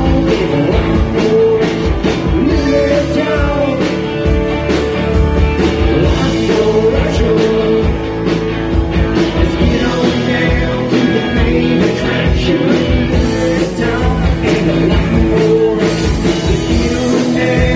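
Live band playing an upbeat rock-and-roll song, electric guitar over a steady drum beat.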